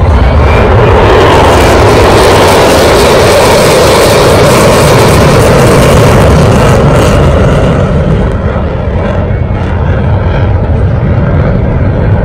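Jet aircraft flying past: loud, steady engine noise that eases slightly about eight seconds in.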